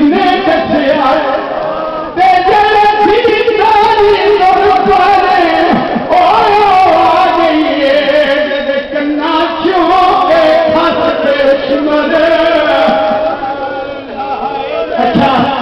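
Group of men chanting a noha, a Shia Muharram lament, in melodic unison, one lead voice with others joining, phrases held and broken by short pauses for breath.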